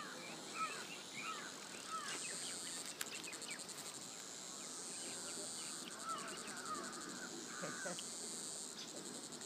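Outdoor countryside ambience: short bird calls repeating throughout over a high, steady insect drone that turns into a fast pulsing buzz for a second or so about two seconds in and again through much of the second half.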